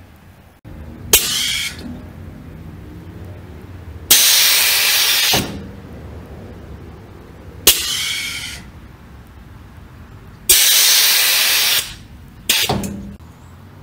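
Air ride suspension's SMC solenoid valves clicking open and compressed air hissing through them as the rear Firestone airbags are filled and dumped in turn. Three short hisses, each starting with a sharp click and fading away, alternate with two longer, louder, steady rushes of air of about a second and a half.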